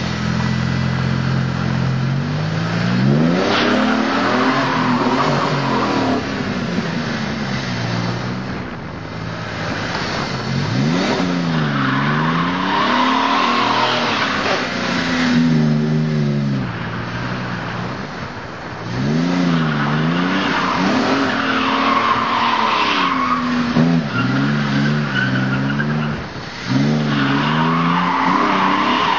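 Stock V6 Ford Mustang engine revving up and falling back again and again while doing donuts, with the rear tyres squealing and skidding on the pavement in several stretches.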